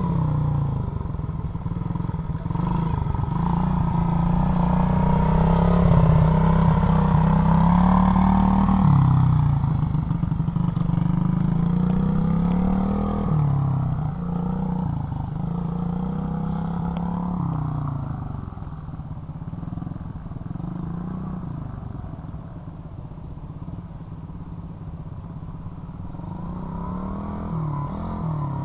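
SSR Motorsports 110cc pit bike's single-cylinder four-stroke engine running, its revs rising and falling over and over as it rides. It is loudest about six to nine seconds in, then fades as the bike moves off.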